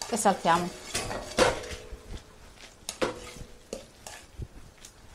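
A metal utensil clanking and scraping against a frying pan as pasta is tossed in its sauce, with some sizzling. There are a few sharp knocks with a ringing tone, the loudest about a second and a half in and others near three and nearly four seconds in.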